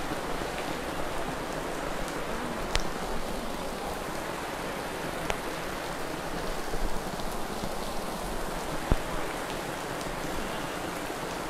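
Steady rain falling, an even hiss with a few faint clicks.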